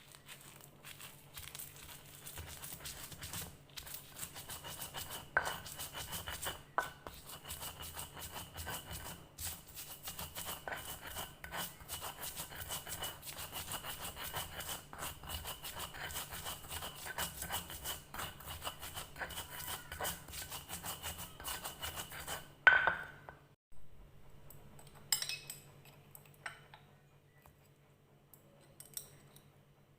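Kitchen utensils clinking and scraping as food is prepared, a dense run of small clicks and scrapes, then one sharp clack and a few scattered clicks as it quietens.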